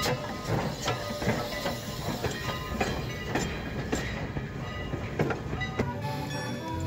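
Steam-hauled passenger train rolling past at a platform: steel wheels clacking and clanking over the rail joints in an irregular run of sharp knocks.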